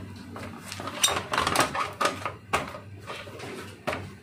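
Plastic projector cover being fitted and pressed into place by hand: an irregular run of clicks, knocks and rattles of plastic against the chassis.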